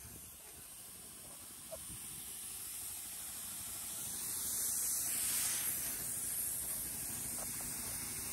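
A steady hiss that swells to its loudest about five to six seconds in, then settles a little lower.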